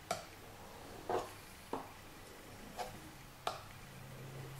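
A knife blade being stroked along a wet whetstone during sharpening. Each pass is marked by a short, sharp click of steel on stone, about five irregularly spaced strokes, with faint scraping between.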